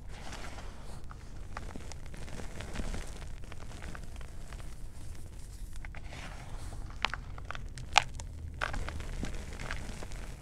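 Fingers pressing into and crushing powdered gym chalk: a continuous soft crunching and crackling, with a few sharper snaps, the loudest about eight seconds in.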